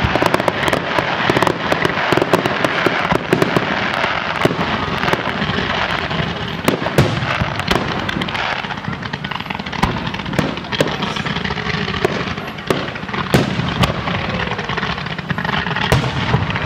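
Fireworks display: a dense patter of crackling for the first couple of seconds, then a steady crackle broken by separate sharp bangs of bursting shells.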